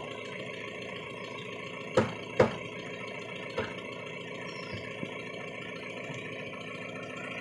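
Pickup truck engine idling steadily, with two sharp knocks about two seconds in, half a second apart, and a lighter one a second later.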